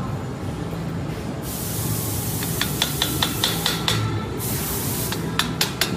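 Quick metal-on-metal clicks or taps, about five a second, as hand tools work on the metal frame of a tablet press, each with a short ringing tone. A steady hiss starts about a second and a half in, breaks off for a moment, then returns. A low hum runs underneath.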